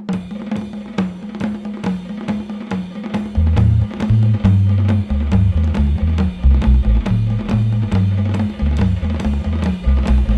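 Instrumental rock band music from 1972: a drum kit keeps a steady beat of about three hits a second, and low bass notes join in about three seconds in.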